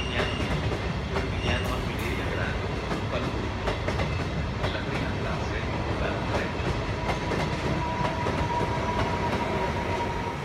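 Trenitalia regional train of passenger coaches rolling slowly past, its wheels clicking over rail joints and points. A brief wheel squeal comes right at the start, and a steady high whine sounds in the last few seconds.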